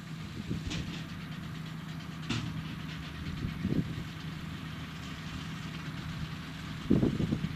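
A farm machine's diesel engine running steadily at idle, with a few short clicks and heavier low thumps over it.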